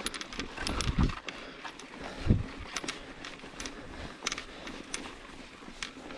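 A mountain bike clattering over a rough dirt trail: many irregular clicks and rattles from the bike, with a low thump about a second in and a stronger one a little past two seconds.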